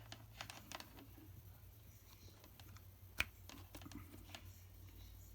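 Faint, scattered light plastic clicks and taps from handling a multimeter's test leads, with one sharper click about three seconds in, over a low steady hum.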